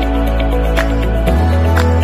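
Background music: sustained low bass notes under soft chords, with a light percussive hit about once a second; the bass note shifts about a second and a half in.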